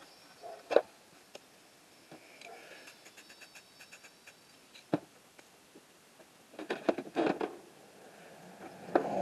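Spray paint cans and tools being handled on a work surface: scattered sharp clicks and knocks, with a quick run of light ticks in the middle and a louder cluster of knocks near the end.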